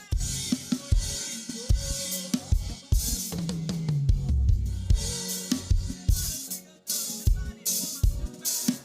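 Live band playing without vocals: a drum kit with kick, snare and cymbals over sustained instrument notes, with a low note sliding down in pitch about a third of the way in.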